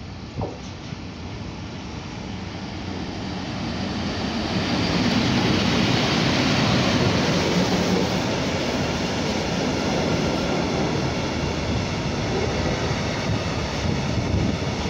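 EU07 electric locomotive hauling a container freight train through a station without stopping. The noise builds over the first five seconds as the locomotive comes up and passes close by, then settles into the steady loud rumble of wheels on the flat container wagons rolling past.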